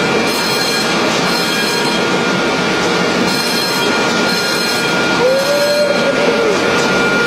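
Ceiling-mounted high-expansion foam generator running and discharging foam: a loud, steady rushing noise with a faint steady high tone, and a short whine that rises and falls about five seconds in.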